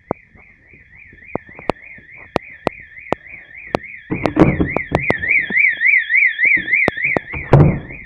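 Electronic fire alarm sounder giving a warbling tone that sweeps up and down about three times a second. It is louder for a few seconds from about halfway through, with scattered sharp clicks throughout.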